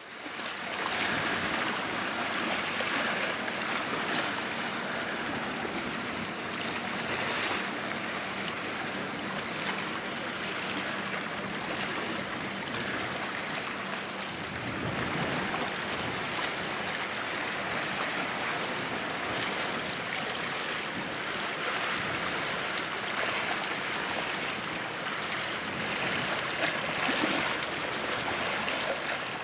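Harbour ambience: a steady wash of wind and water noise, with a faint low hum that stops about halfway through.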